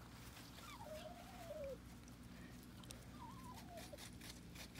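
A dog whining faintly: two drawn-out, wavering, falling whines, one about a second in and another about three seconds in.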